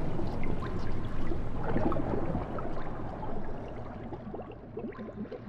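Water sloshing and gurgling, with many small bubbly pops and drips, fading out gradually.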